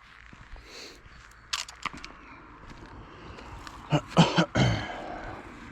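A car approaching along the road, its engine and tyre noise building slowly. A few sharp clicks come about a second and a half in, and brief voice-like sounds near the end.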